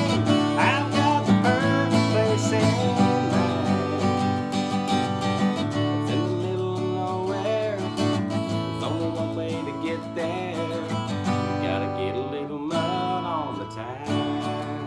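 Yamaha acoustic guitar strummed in a country song, with a man singing over it near the start and again near the end.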